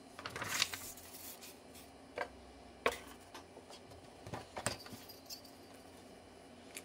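Light handling noises on a tabletop: a paper rustle about half a second in, then a few scattered soft clicks and taps as paper templates, styrene model parts and a steel ruler are moved about.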